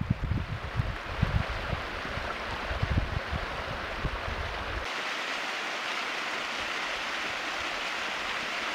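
Mountain stream running over rocks, with wind buffeting the microphone. About five seconds in the buffeting stops suddenly and a steady, brighter rush of a small cascade takes over.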